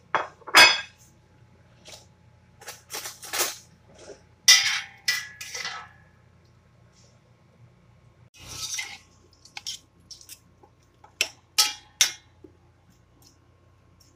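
Scattered clinks and knocks against a stainless steel stockpot as onions, tomatoes, dried lemons and a chili are put into the rice, coming in short clusters with gaps between.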